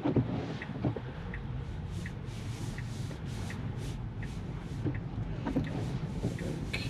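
A Tesla's turn-signal indicator ticking steadily, about once every 0.7 seconds, over the cabin hum of a car moving slowly on a wet road in the rain. A wiper sweep and a couple of soft knocks come right at the start.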